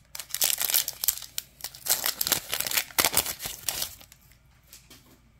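Foil wrapper of a Panini Select football card pack crinkling and tearing as the pack is opened, a dense crackle that dies away about four seconds in.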